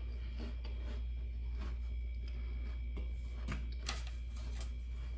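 Room tone with a steady low hum, and a few faint, short clicks and small handling noises scattered through it.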